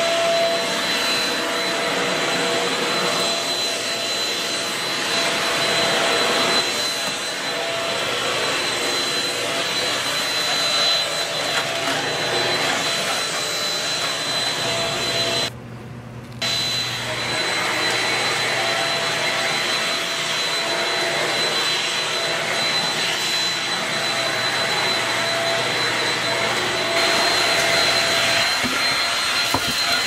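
Shark Rocket UV450 corded vacuum cleaner running steadily, a motor whine over the rush of suction air. The sound drops out for about a second midway and comes back a little louder near the end.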